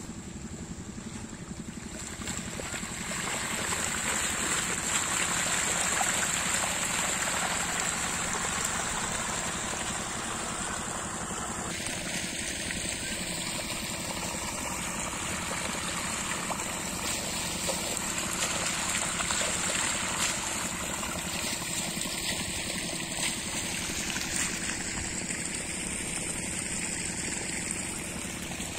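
Irrigation water flowing and trickling across a field, growing louder about three seconds in, over the steady hum of an 8 hp diesel water pump-set engine running in the background.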